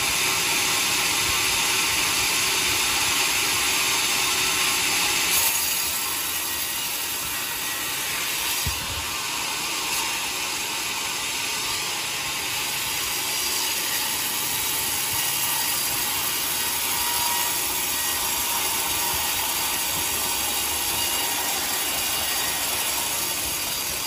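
Large sawmill band saw running and sawing through a teak log fed on its carriage. It is a steady noise, a little louder for the first five seconds or so.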